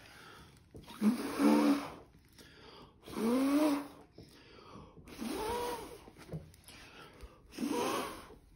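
A person blowing hard by mouth onto wet acrylic paint, the Dutch pour technique of pushing the paint out in waves. Four long breathy puffs of about a second each, each with a whistly tone that rises and falls.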